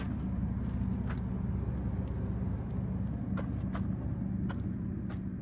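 A Ford F-150 pickup's 3.5-litre V6 idling steadily, a low even hum, with a few faint clicks over it.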